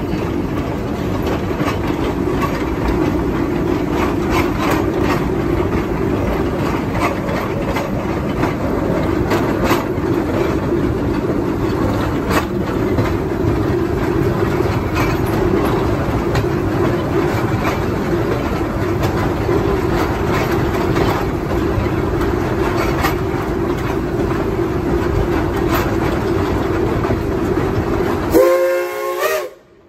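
Steady running noise of a train pulled by a Shay geared steam locomotive, with scattered sharp clicks from the wheels and track. Near the end a brief whistle sounds, then the sound cuts off suddenly.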